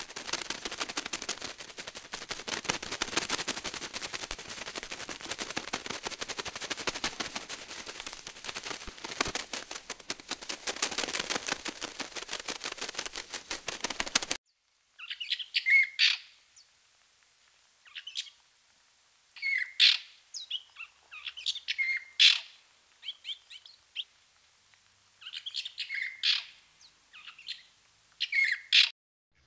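A dense, rapid run of clicking chatter for about the first half, which cuts off suddenly; then short bird chirps and calls in scattered groups with quiet gaps between them.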